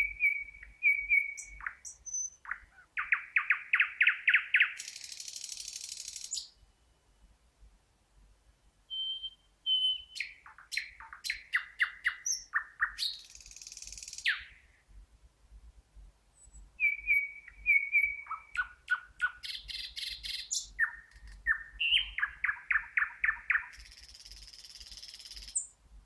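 Thrush nightingale singing three song phrases. Each opens with a few clear notes, goes into a run of loud, rapidly repeated notes at about five a second, and ends in a high, dry rattle.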